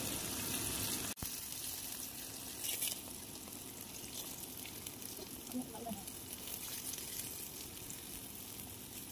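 Flour-dusted boneless chicken breast pieces shallow-frying in oil in a pan: a steady, soft sizzle.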